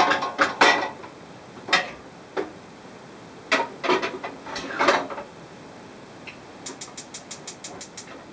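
Kitchenware clatter: irregular knocks and clinks in the first five seconds, then a fast run of about ten light ticks near the end.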